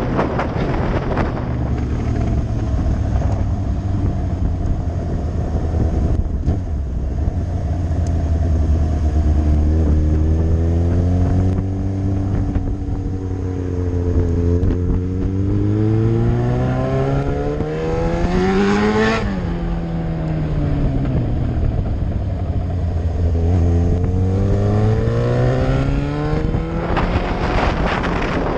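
Yamaha R6 inline-four engine heard from the moving bike, holding a steady low note at cruise. About two-thirds of the way through it rises smoothly in pitch, drops back quickly, then climbs again near the end. Wind buffets the microphone at the start and end.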